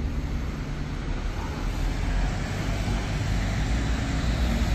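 Steady city traffic noise: a low rumble of road vehicles, including buses and cars, with no single event standing out.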